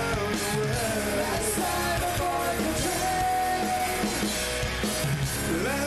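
Live rock music from a power trio of electric guitar, electric bass and drums playing.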